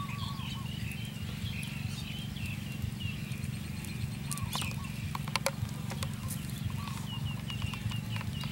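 Small birds chirping repeatedly in a rural field over a steady low hum, with a few sharp clicks from objects being handled around the middle.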